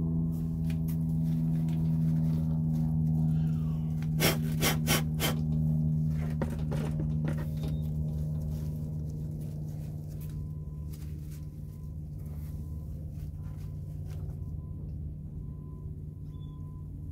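A steady low hum runs throughout and eases off in the second half. About four to five seconds in, a quick cluster of sharp clicks and knocks comes from the clear plastic rat tubs being handled.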